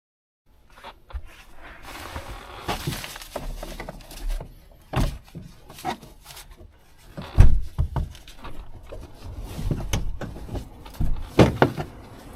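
Irregular knocks, clunks and thumps of objects being handled at close range, with a heavy thump about seven seconds in and a pair of sharp knocks near the end.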